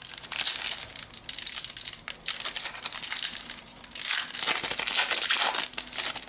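Foil wrapper of a Panini Adrenalyn XL trading-card booster pack being torn open and crumpled by hand, a dense crinkling, loudest about two-thirds of the way through, that stops near the end as the cards come out.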